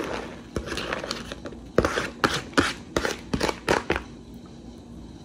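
Paper plate being tipped, tapped and scraped to shake shredded cheese onto a glass baking dish: a quick run of sharp taps and scrapes, loudest around the middle, dying away near the end.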